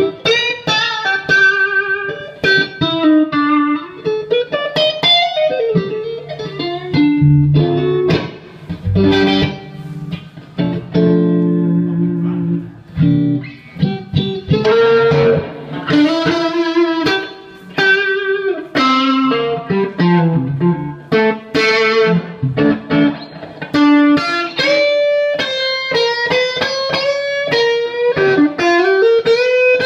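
Electric guitar played through an overdriven amp tone: single-note lead lines with string bends and vibrato, with the notes sustaining and then breaking off between phrases.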